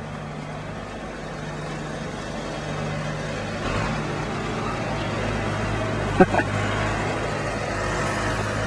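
A motor vehicle's engine running, its hum dropping lower and growing louder about three and a half seconds in, with a short sharp squeak about six seconds in.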